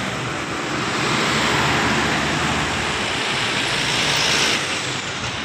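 Steady rush of road traffic noise, a vehicle passing close by with tyre and engine noise blended into a broad hiss that eases slightly near the end.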